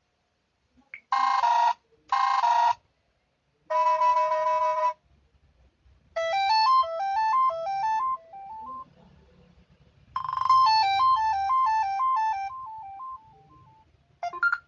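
Samsung Galaxy Pocket built-in phone alert tones played one after another: two short beeps, a longer two-note chime, then two quick runs of bright electronic notes, the second fading out.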